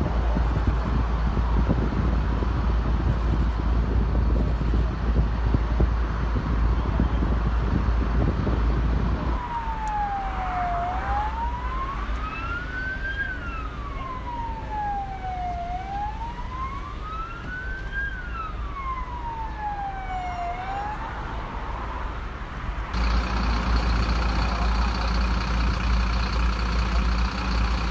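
A fire engine siren wails in a slow rise and fall, about two full sweeps, in the middle stretch. It is framed by a loud, low, steady rumble at the start and a steady engine drone after a sudden change near the end.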